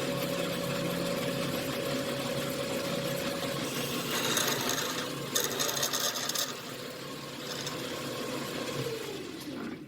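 1953 Logan engine lathe running with a steady hum and whine while a drill bit cuts into aluminum stock, with a hissing, scraping cutting noise from about four to six and a half seconds in. Near the end the motor is shut off and its pitch falls as it winds down.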